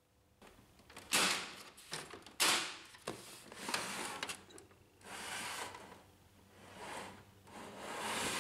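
Plastic cover parts of a Brother HL-1110 laser printer being handled and fitted back on: three sharp knocks or snaps in the first few seconds, then several softer scraping slides of plastic against plastic.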